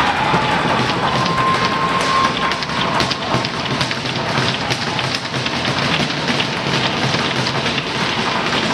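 Ice-rink crowd and game noise: a dense, steady wash of clatter with many sharp taps and knocks, and a faint held tone about a second in.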